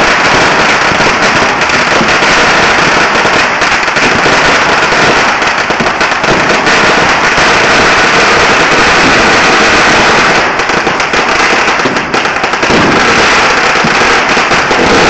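Firecrackers and ground-level fireworks going off in a dense, unbroken crackle of rapid bangs, very loud throughout. The crackle thins slightly after about ten seconds.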